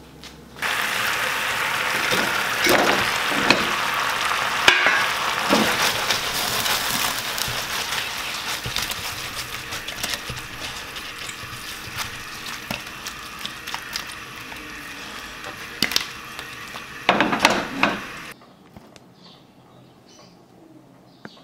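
Chicken wings frying in a hot pan as they are tossed and stirred: a sizzle with scattered clicks and scrapes against the pan. The sizzle starts about half a second in and slowly dies down. A burst of louder clattering comes near the end, then the sound cuts off.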